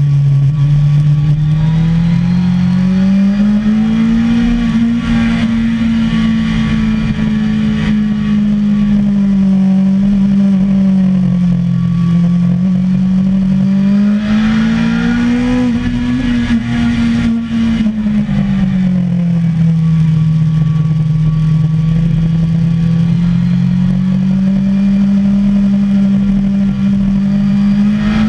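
Sportbike engine heard from on board, held in second gear, its note rising and falling slowly as the rider opens and rolls off the throttle through the corners, over steady wind noise. It climbs a few seconds in, sags around the middle, rises again past halfway, then drops and holds steady near the end.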